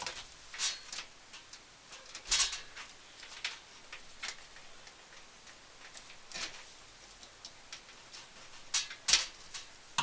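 Hands working computer cables and twist ties inside a PC case: irregular small clicks and light knocks, a few seconds apart, with louder ones a couple of seconds in and twice near the end.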